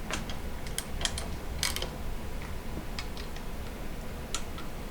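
Scattered light clicks and clinks of parts being handled while the manifolds are fitted to a Model T engine, irregular and unhurried, over a faint steady low hum.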